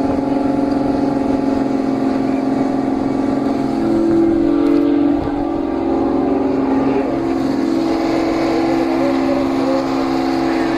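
Fishing boat's engine and deck machinery running, a loud steady drone with a strong hum that shifts slightly in pitch about four seconds in.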